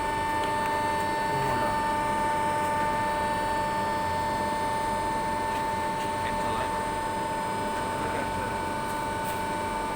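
Galvalume roofing-sheet machine running with a steady hum and a constant high whine.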